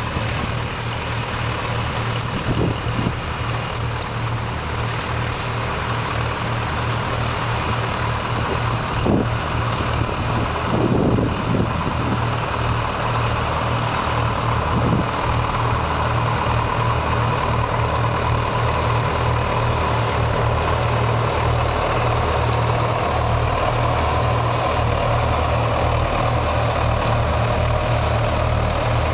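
Doe 130 Triple D tractor's twin diesel engines running steadily with a low, pulsing rumble, getting gradually louder.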